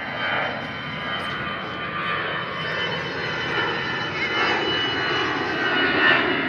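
Airbus A320 airliner's jet engines at takeoff climb power, heard from the ground below: a steady rushing noise with a high steady whine, gradually getting louder.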